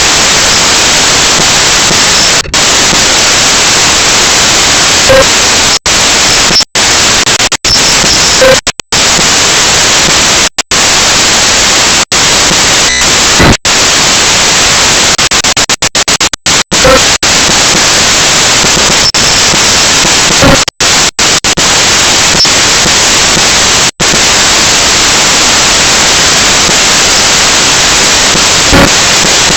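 Loud, steady static hiss with no pitch, cut by a dozen or so brief dropouts to silence, several of them in quick runs.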